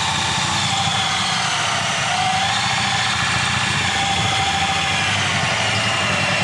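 Cordless drill driving a hole saw into a drywall ceiling, the motor running steadily under load with its whine wavering slightly in pitch.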